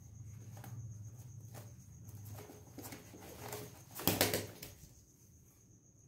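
A budgerigar held in a hand flaps its wings in a quick flurry about four seconds in, with scattered rustles before it. A steady high chirring of crickets runs underneath.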